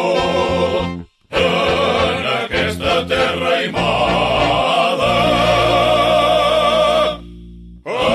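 Vocal group singing a Catalan song in harmony, with a brief silent break about a second in. In the second half the voices hold one long chord, which drops away shortly before the end before the singing comes back in.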